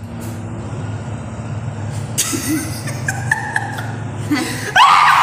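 A steady low rumble with a brief hiss about two seconds in, then a man and a woman burst into loud laughter near the end.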